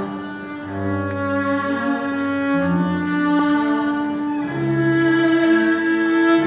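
Small string ensemble with cellos playing slow, sustained bowed chords, the held notes changing every second or two over a low bass line.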